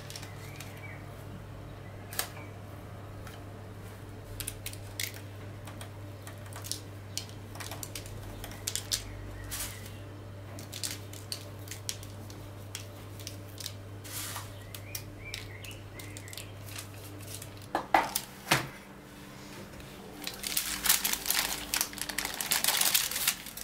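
Gloved hands working soft bun dough and baked buns on a parchment-lined baking tray: scattered light taps and clicks over a steady low hum. Two sharper knocks come about three quarters through, then a dense crackling rustle of parchment paper and crusty baked buns being handled and pulled apart near the end.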